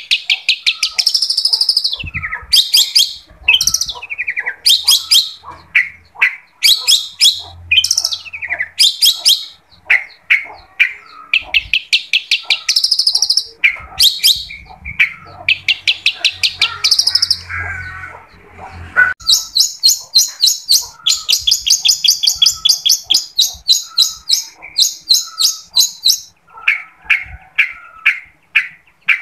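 Long-tailed shrike (cendet) singing vigorously: fast chattering phrases of rapidly repeated sharp notes with short gaps, then a long unbroken rapid trill of about seven seconds in the second half, then shorter phrases again.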